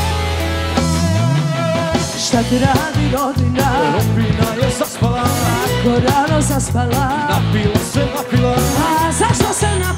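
Loud dance music: a held bass and guitar chord with a sliding bass note in the first second or two, then a steady beat with a wavering lead melody from about two and a half seconds in.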